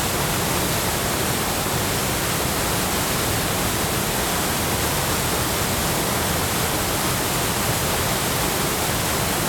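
Steady, loud rush of a large waterfall, the water pouring over the falls in an even roar of noise with no breaks.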